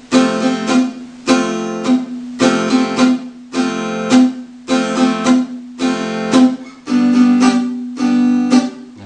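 Acoustic guitar strumming a barre chord in a steady rhythm, each chord stopped short as the fretting hand eases off the strings to mute them. Near the end one chord is left to ring a little longer.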